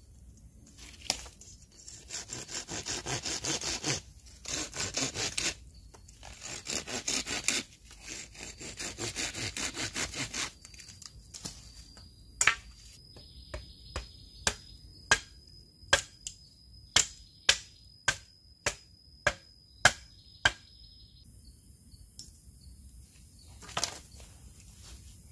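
A machete blade scraped back and forth on a stone in four quick rasping runs, being sharpened. Then come a dozen or so sharp chops, about one every half second, as the machete cuts into a bamboo pole on the rock, and one last chop near the end.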